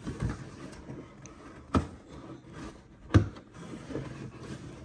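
Cardboard packing box of a Starlink kit being closed up by hand: rubbing and shuffling of cardboard and packed parts, with two sharp knocks about a second and a half apart.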